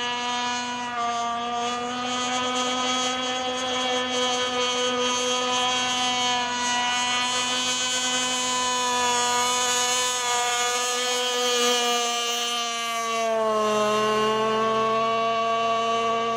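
Radio-controlled mono-hull racing boat's motor running flat out at a steady high pitch; about thirteen seconds in the pitch dips briefly, then climbs back.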